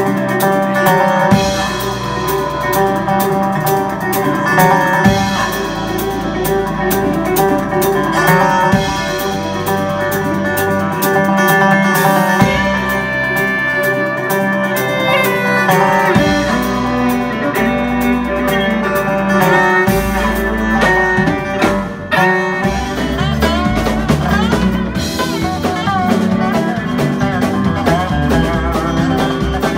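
Live band playing instrumental music: steel guitar with upright bass, guitar and drum kit. The steel guitar plays gliding notes in the second half.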